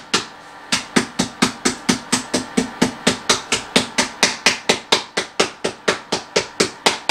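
Almonds being broken up with rapid, even strikes on a hard surface, about five a second, after a brief pause near the start. A faint steady hum from the ice cream maker's running motor sits underneath.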